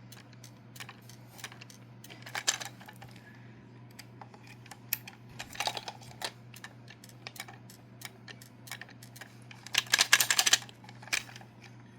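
Scattered light clicks and taps of a battery-powered plastic toy car being handled, with a denser, louder burst of clicking about ten seconds in, over a faint steady hum. The toy itself makes no sound of its own: its batteries are flat.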